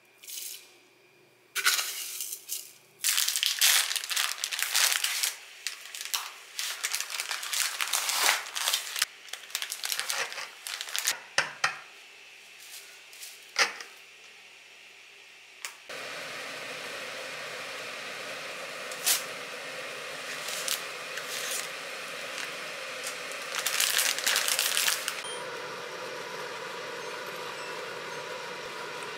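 Dry spaghetti strands clicking and rattling as a bundle is handled. After about 16 seconds this gives way to a steady hiss with a few scattered clicks and a short flurry of clicks a little later.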